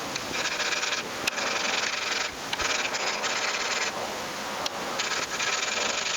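Abrasive paper being rubbed by hand over a silver ring, sanding its surface in several long strokes with short pauses between them.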